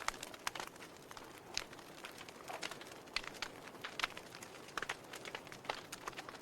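Logs burning in a fireplace, crackling with irregular sharp snaps and pops, roughly two a second, over a soft steady hiss.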